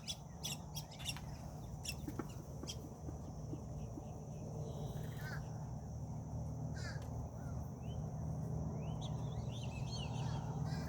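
Birds calling: short chirping calls with quick pitch glides come and go, mostly after the middle, over a steady low hum, with a run of short sharp clicks in the first few seconds.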